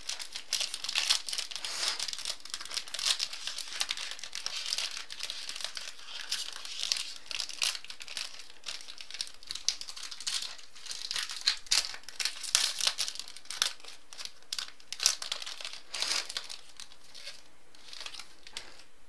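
Crinkling and tearing of a trading-card pack's wrapper as the pack is opened: dense crackling that thins out near the end.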